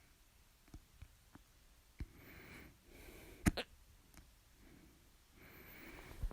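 A person hiccuping: one loud, sharp hiccup about halfway through, with smaller clicks before it and another short stroke near the end. Soft breathing can be heard in between.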